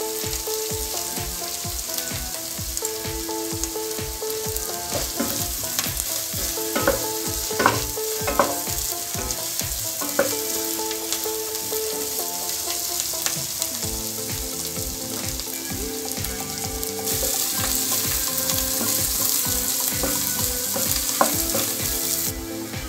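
Onions and green chillies with ginger-garlic paste and turmeric frying in oil in a nonstick kadai, a steady sizzle as the raw smell of the masala base is fried off. A flat spatula stirs and scrapes the pan now and then. The sizzle gets louder for several seconds past the middle and drops back near the end.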